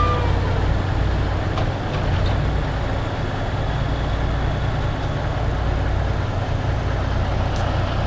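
Heavy diesel engines running steadily with a deep low hum: a Cat log-loading shovel working and a Kenworth log truck idling. A few faint clicks come through over the engines.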